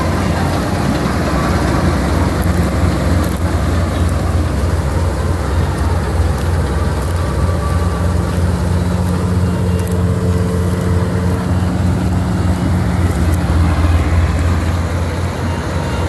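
Syan 998 combine harvester running under load as it harvests, a steady low engine drone that does not change.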